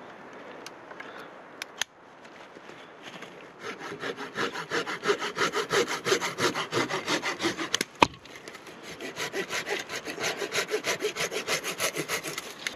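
Tajima G-Saw Japanese pull saw cutting wood in quick, even strokes, with one sharp crack about eight seconds in before the sawing goes on.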